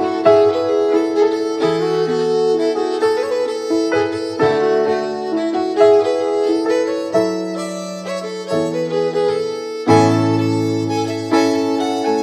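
Instrumental background music: held melodic notes over a steady run of struck or plucked notes, with a deeper, fuller part coming in about ten seconds in.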